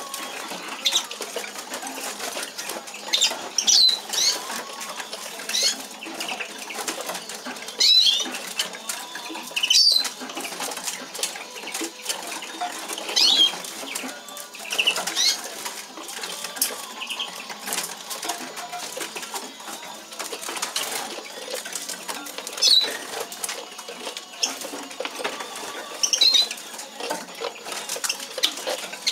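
Siskins in wire-fronted show cages fluttering and hopping between perches: wing flaps, rustles and light clicks of feet on perches and cage bars, with short high bird chirps every few seconds.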